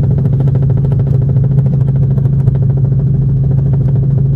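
Helicopter cabin noise: the engine and rotor drone steadily, with a strong low hum and a fine, even flutter.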